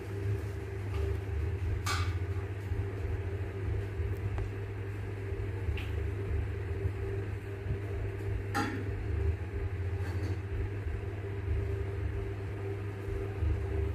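Steady low hum with a few faint, brief clicks scattered through it.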